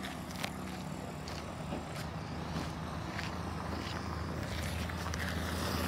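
An engine runs with a steady low hum that grows gradually louder, heard over footsteps crunching on gravel.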